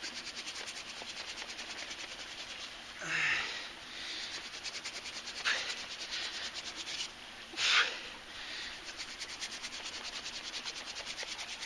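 Hand drill friction fire: a wooden spindle spun back and forth between the palms, grinding in the hearth board's socket in a fast, even rhythm to build hot dust toward a coal. A few heavy breaths of effort break in every couple of seconds.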